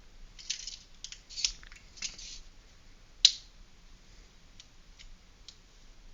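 Scraping and rustling as the airsoft mine is handled, then one sharp click about three seconds in and a few faint ticks: the spring-loaded plunger and safety being worked to turn the mine off.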